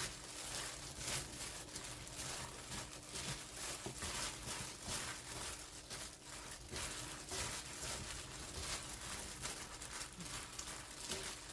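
Gloved hands gently tossing salted napa cabbage with a thick seasoning paste in a bowl: many small, irregular rustles of leaves and glove as the paste is worked in from the bottom.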